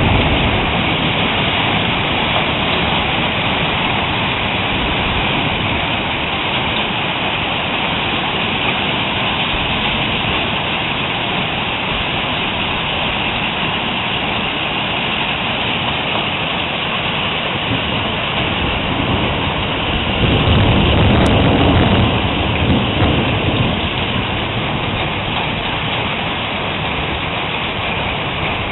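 Heavy hail pelting down in a dense, steady hiss. About twenty seconds in, a low rumble of thunder swells for a few seconds.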